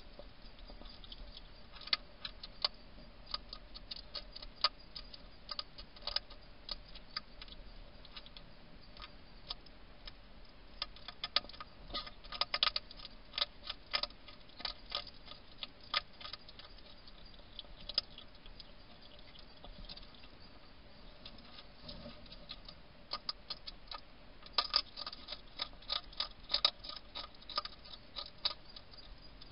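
A wild hedgehog crunching dry food pellets from a bowl: irregular sharp crunches and clicks that come in clusters, busiest in the middle and near the end, over a faint steady hiss.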